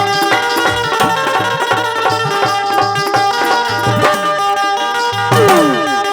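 Instrumental interlude of a Hindi folk song: held melodic tones over a quick, steady drum beat, with falling pitch swoops near the end.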